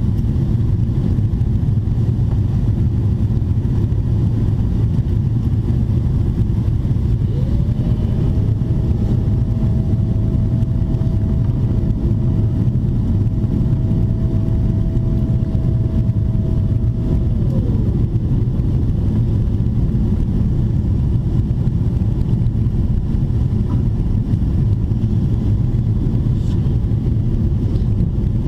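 Cabin noise of a Boeing 777-300ER on final approach: a steady low roar of airflow and its GE90-115B engines. About seven seconds in, a mid-pitched whine rises, holds level for about ten seconds, then falls away.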